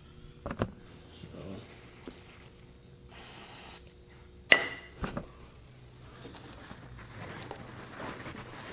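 A short hiss from an aerosol can of brake cleaner being sprayed, then a sharp metallic clink with a brief ring and a smaller knock as the can and tools are handled.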